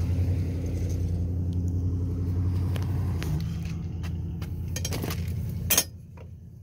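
A steady low machine hum that eases off after about three seconds, followed by a few clicks and knocks, the sharpest about six seconds in, after which it goes quieter.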